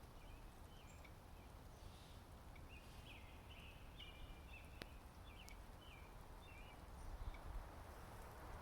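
Faint birdsong: a quick series of short, high chirps over the first five seconds, over a low, steady background rumble.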